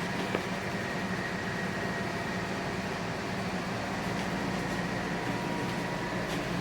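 A machine running steadily: a hum with a faint high whine over it.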